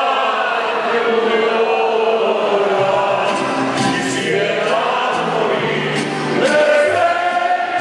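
A group of male and female singers singing a Mexican song together, backed by a mariachi band of violins and guitars; low bass notes join about three seconds in.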